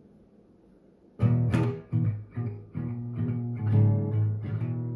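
Guitar music: a short run of plucked and strummed notes that starts about a second in and ends on a held, ringing chord.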